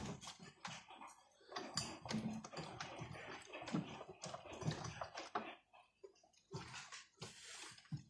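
Toy Miele washing machine on a rinse, its small drum turning and sloshing rinse water around the socks in uneven splashes with small clicks; the sloshing drops away briefly about six seconds in.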